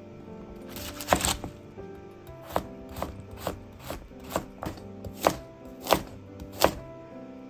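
Kitchen knife slicing carrot and burdock root on a plastic cutting board. A crunchy cut comes about a second in, then a run of about nine sharp knife taps, roughly two a second.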